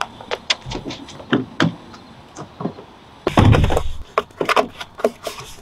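Quick footsteps on asphalt, then a car door thuds shut about three seconds in, followed by a run of knocks and fumbling inside the car.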